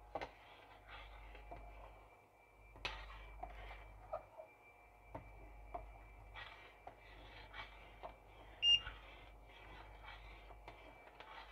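Metal spoon stirring thickened chicken soup in a stainless steel saucepan: soft scrapes and irregular light clinks against the pot, over a faint steady high whine. About three-quarters of the way through comes one brief, louder high-pitched ring.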